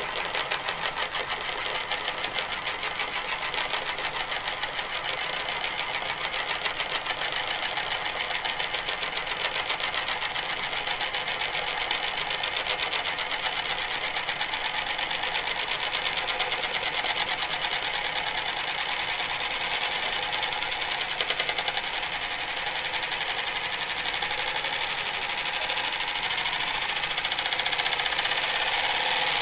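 Stainless steel ring spinning and wobbling on a desk's glass top, making a fast, continuous metallic rattle against the glass. The rattle grows a little louder near the end as the ring settles lower.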